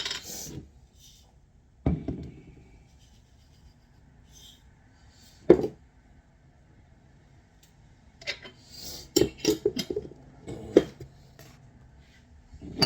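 Kitchen dishes and utensils being handled: a few separate knocks, then a quick run of clinks and knocks about eight seconds in.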